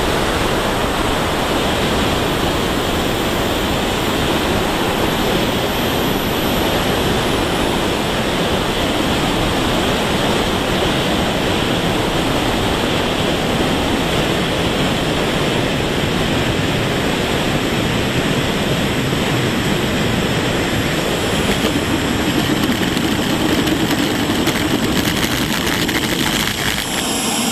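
Steady rushing roar of airflow and a small jet turbine, heard from a camera mounted on an RC turbine jet as it comes in to land and rolls out on the runway. A faint high whine drops in pitch a few seconds in.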